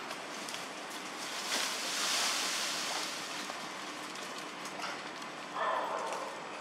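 Steady outdoor background hiss with a faint low hum under it. The hiss swells for about a second and a half around two seconds in, and a short louder sound comes near the end.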